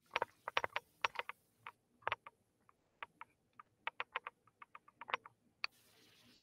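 Typing on a computer keyboard, picked up through a video call's microphone: a quick, irregular run of short key clicks, ending in a brief hiss that cuts off suddenly.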